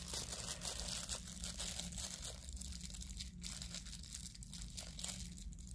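Small clear plastic bag of metal earring hooks crinkling and crackling as it is handled, the crackles thinning out near the end.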